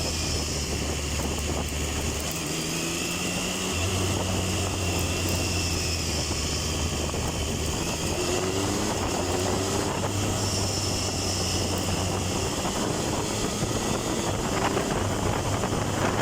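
Triumph Tiger 1050's inline-triple engine running while riding, its pitch dropping and rising with throttle and gear changes and climbing several times as it accelerates, over wind rush.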